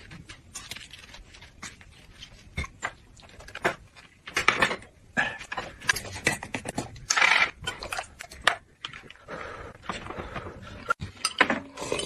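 Close-miked eating sounds in short, irregular bursts: lettuce leaves and thin pancakes handled and crunched, chewing and mouth sounds, with a few clinks of dishes.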